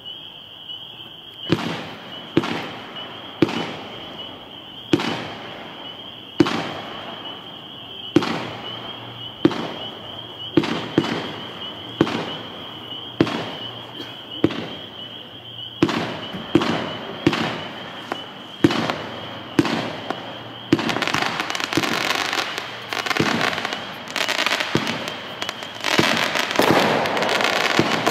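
Lidu 'Big Eight' 25-shot 1.3G fireworks cake firing: a long string of sharp shots, roughly one a second. A dense hiss fills in between the shots over the last several seconds.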